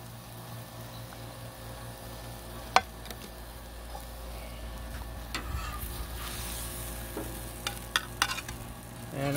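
Orange roughy fillet sizzling on a Blackstone steel flat-top griddle, with one sharp click about three seconds in. Near the end several clicks and scrapes of a metal spatula follow as the fillet is lifted off the griddle.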